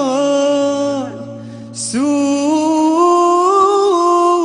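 Male nasheed vocal holding long sung notes over a low steady drone, with a brief break about a second in before the voice comes back on a long held note.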